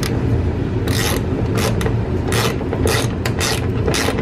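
Ratchet wrench tightening a nut down over a lock washer onto a roof-rail bolt through the van roof: short rasping ratchet strokes, roughly two a second, over a steady low hum.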